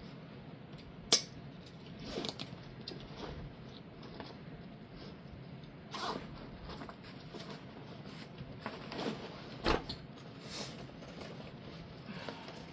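Nylon tactical backpack being handled: fabric rustling and straps and buckles knocking, with a sharp click about a second in and a heavier knock later on.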